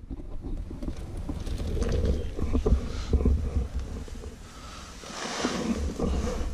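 Wind buffeting the camera microphone, a ragged low rumble, with a few light knocks and a swell of rustling about five seconds in.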